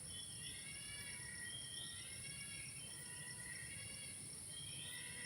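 Wild animal calls in a forest at dawn: short rising wails, several in a row, that sound like a baby crying ('oek oek') and scary. A steady high insect drone runs underneath.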